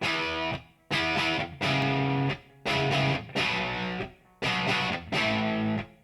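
Distorted electric guitar played through a Marshall Origin 50-watt valve amp head, in a series of about seven short chord stabs, each stopped after well under a second.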